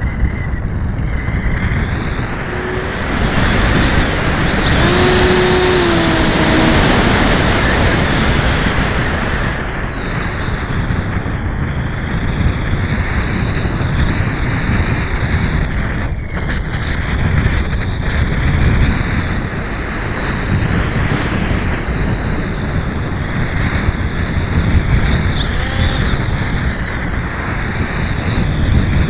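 Onboard sound of a small electric RC model plane in flight: wind buffeting the camera's microphone over the high whine of the motor and propeller. The whine climbs higher and louder from about three seconds in as the throttle opens, holds until about nine seconds, then drops back to a lower, steadier whine.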